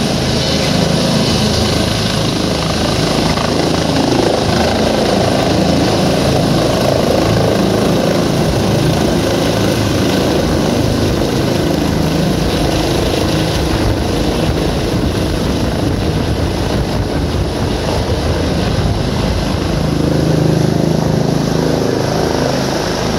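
Rescue helicopter flying low and close, its rotor and engine running loud and steady throughout.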